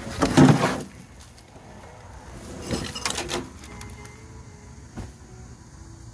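Close rustling and bumping handling noise in two bursts, the louder one just after the start and another about three seconds in, with a single sharp knock near five seconds.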